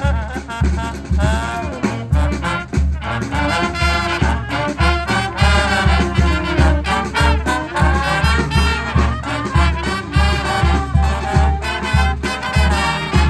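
High school brass band playing an upbeat, swing-style tune over a steady low beat, with a sliding horn smear about a second and a half in.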